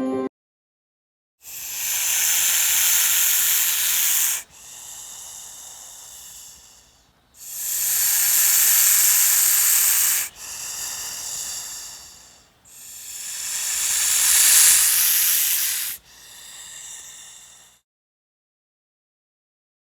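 Snake hissing: three long, loud hisses of about three seconds each. Each is followed by a shorter, quieter hiss.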